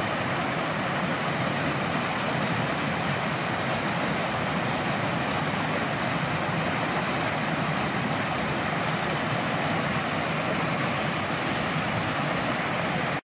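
Mountain torrent rushing over a small boulder cascade: a steady hiss of whitewater that cuts off suddenly near the end.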